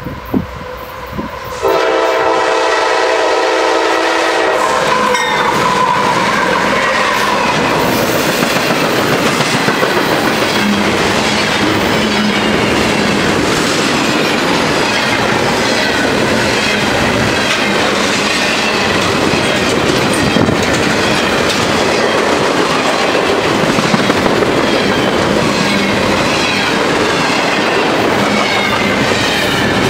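A CSX double-stack intermodal freight train led by a GE AC6000CW locomotive: the locomotive's horn blows a chord about two seconds in for around three seconds, then the train passes at speed, the container cars rolling by with steady rail noise and clickety-clack of wheels over the rail joints.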